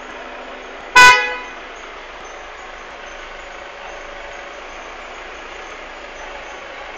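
One short, loud toot from a vehicle horn about a second in, over a steady background hiss.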